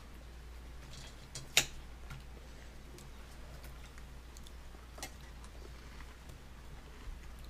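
A few light clicks and taps of fingers and food on a plastic high-chair tray over a low steady hum. The sharpest click is about one and a half seconds in, and another comes about five seconds in.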